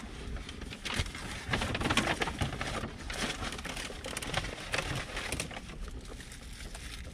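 Paper take-out bag rustling and plastic food containers and wrappers crinkling as they are handled, an irregular run of rustles and light clicks.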